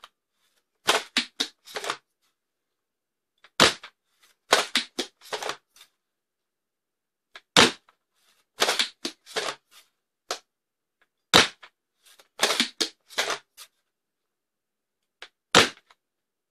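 Foam-dart blaster with a Worker SCAR barrel attachment firing four shots about four seconds apart, each a sharp crack. About a second after each shot comes a quick run of clicks as the blaster is primed again.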